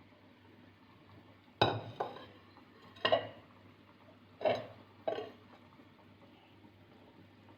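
A utensil clinking and knocking against cookware, about six sharp strikes with brief ringing over a few seconds, like stirring or scraping food in a pot.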